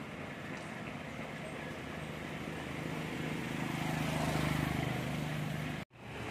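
Battered chicken pieces sizzling in a wok of hot oil, with a motor vehicle's engine hum that grows louder about halfway through as it passes on the road. The sound cuts out briefly near the end.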